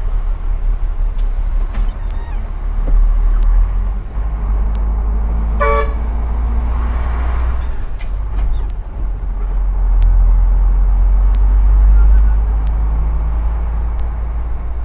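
Oil tanker truck's diesel engine droning heavily, heard from inside the cab as it pulls along at low speed, swelling in level twice. A vehicle horn gives one short toot a little over halfway through.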